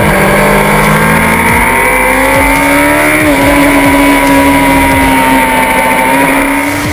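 A 1000cc JSB1000 superbike engine heard from an onboard camera, running hard under acceleration with its pitch climbing slowly. About three seconds in there is an upshift where the pitch drops briefly, then it holds at a high steady note.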